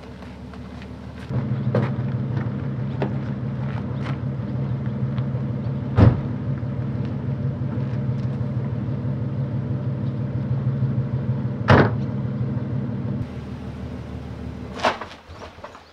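Nissan Fairlady Z (Z32) sports car engine running steadily, getting louder about a second in, with two sharp knocks about six seconds apart. Near the end it drops away as the car pulls off across the gravel, with one more knock.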